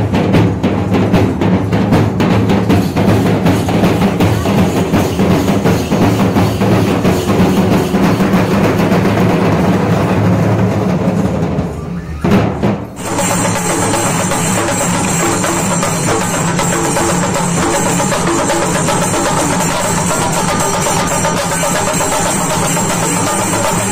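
Festival drumming: a dense, rapid beat of drums. About halfway through it cuts abruptly to steadier music with held high notes over the beat.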